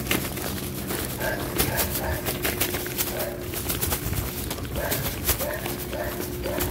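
Footsteps of a person walking over the rough ground beside a railway track, with two groups of short, pitched animal calls in the distance, one about a second in and one near the end.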